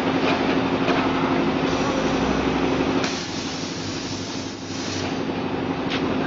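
Continuous snack-food fryer line running: a steady machine hum with a constant drone under dense mechanical noise and a few faint clicks. The noise eases briefly about three seconds in.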